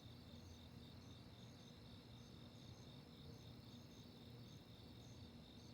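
Faint night crickets trilling steadily, with short high chirps repeating a few times a second, over a faint low rumble of distant traffic.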